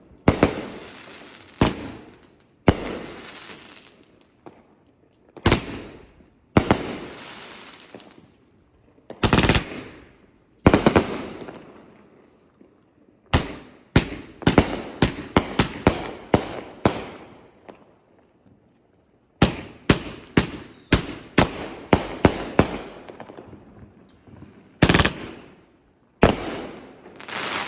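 Consumer fireworks finale going off: a long series of loud bangs at uneven spacing, several in quick runs, each trailing off in an echo.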